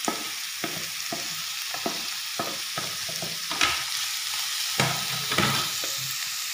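Diced carrot, onion and sliced green beans sizzling in oil in a frying pan as a wooden spatula stirs them, with repeated knocks and scrapes of the spatula against the pan, loudest around the middle.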